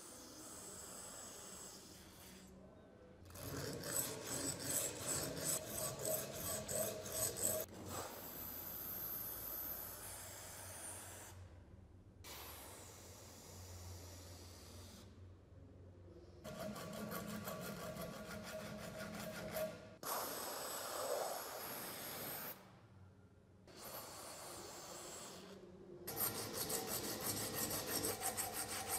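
Abrasive paper rubbed back and forth by hand over the brass body of an antique padlock, in quick, even strokes, stopping and starting several times. Near the middle, a stretch of liquid dripping and splashing off a lock part.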